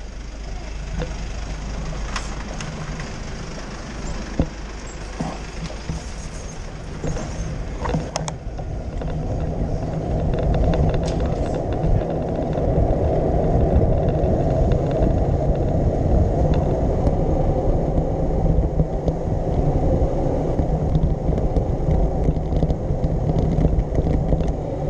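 Street traffic noise with a few sharp clicks and knocks as a bicycle rides past a van. From about eight seconds in, a steady low rumble of wind buffeting the handlebar camera's microphone takes over as the bike rolls along the open street.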